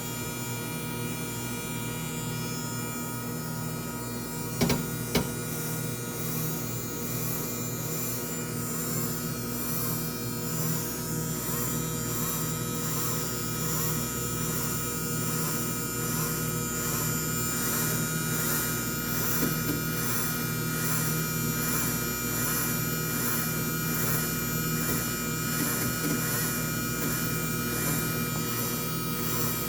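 Mini washing machine's small electric motor running with a steady hum, its wash action settling into an even, repeating churn; two sharp clicks about five seconds in.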